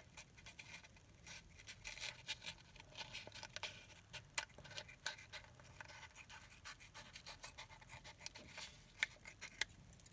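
Small pointed scissors snipping and sliding through the soft, leathery shell of a ball python egg: a quiet run of scratchy cuts and little clicks, with a few sharper snips in the middle and near the end.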